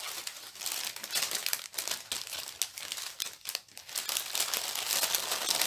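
Plastic packaging of diamond painting kits crinkling and rustling as it is handled by hand, an irregular crackle of many small ticks.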